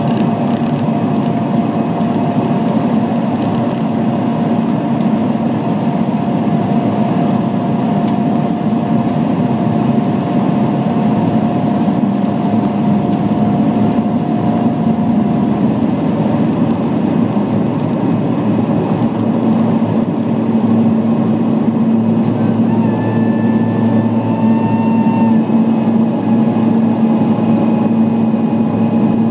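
Airliner's engines at takeoff power heard from inside the cabin during the takeoff roll and liftoff: a loud, steady roar with a low hum. About three quarters of the way through, a few higher whining tones come in.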